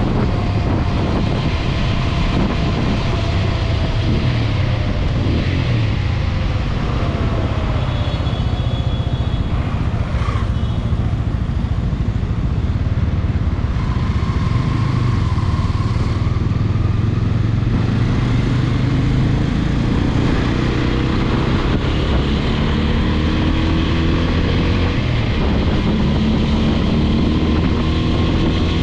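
TVS Apache RTR 200 4V's single-cylinder engine running under way, heard from on board with wind rush over the microphone. Its revs rise over the last several seconds as it accelerates.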